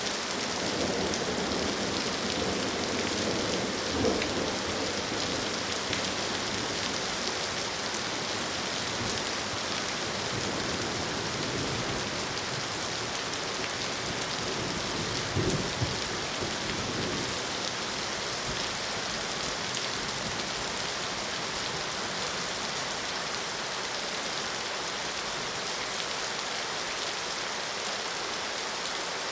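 Steady rain falling, an even hiss throughout. A low rumble of thunder dies away over the first few seconds, and there is a brief louder thud about fifteen seconds in.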